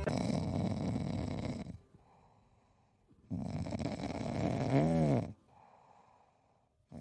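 A sleeping pet snoring: two long snores about three and a half seconds apart, with faint breathing between them. The second snore ends in a short tone that rises and then falls.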